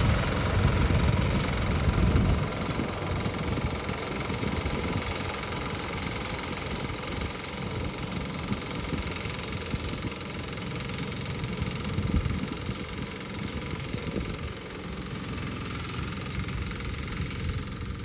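Small engine of a walk-behind mini tiller paddy reaper running steadily as it cuts rice. It is loudest in the first two seconds and then quieter.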